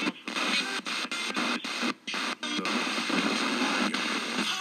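Ghost box made from an analog FM tuner swept by a random voltage generator, jumping across the band: dense radio static cut by short dropouts, with snatches of broadcast music and voices.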